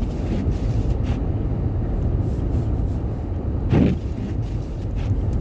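Steady low rumble of a car heard from inside the cabin while driving on a snowy road: engine and tyre noise, with a few faint clicks and one short louder sound a little before the end.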